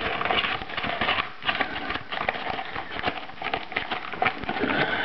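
Cardboard box being handled and pulled apart by hand: a busy run of crackling, scraping and tapping of card.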